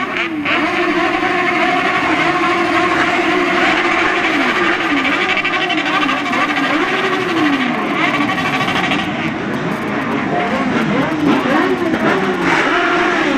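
Several vehicle engines revving, overlapping, their pitch repeatedly rising and falling.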